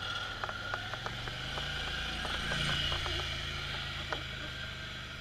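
Polaris Sportsman ATV engine running at low revs as the quad crawls up a steep slickrock ledge, the revs swelling briefly about halfway through. Scattered light clicks and rattles sound over the engine.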